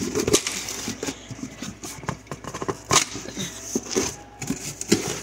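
Cardboard boxes and plastic packaging being handled: irregular rustling and scraping with a few sharp knocks, the loudest about three seconds in and near the end.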